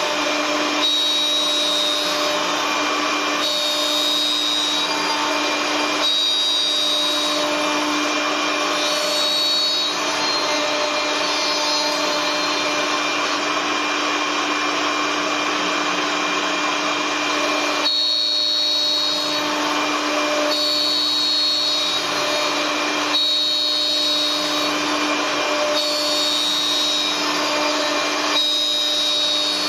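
CNC wood turning center cutting two wooden workpieces, its electric milling spindles carving spiral twists into the turning wood. A steady machine whine over the noise of cutting wood, its tone shifting every two to three seconds.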